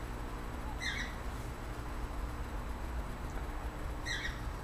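Bird chirping outdoors: two short chirps about three seconds apart, over a steady low hum.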